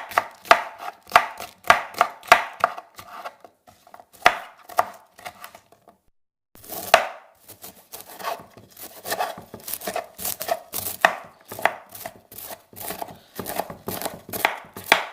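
Knife-chopping sound effect: sharp, quick strokes of a blade cutting on a board, a few a second. They stop for about a second around six seconds in, then resume more densely.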